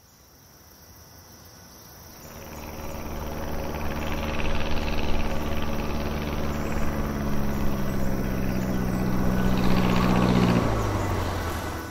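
Single-engine light propeller plane flying by: the engine and propeller drone grows louder over the first few seconds and holds steady, then drops in pitch about ten seconds in.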